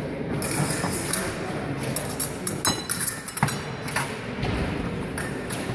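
Épée blades clinking against each other in a fencing exchange, with a few sharp metallic clicks, one of them ringing briefly, over the steady noise of the hall.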